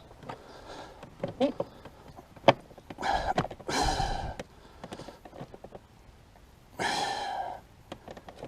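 Clicks and knocks of a plastic motorcycle body panel being worked into place, with one sharp knock about two and a half seconds in. Two long breathy sighs come about three and seven seconds in, with a brief grunt before them.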